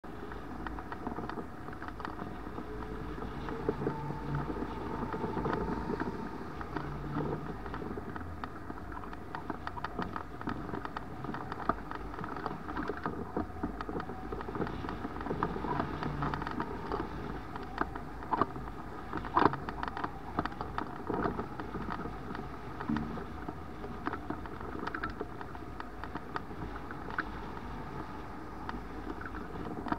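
Rushing airflow over a camera mounted on an Icaro 2000 RX2 hang glider in flight: a steady wind noise with frequent small clicks and rattles throughout.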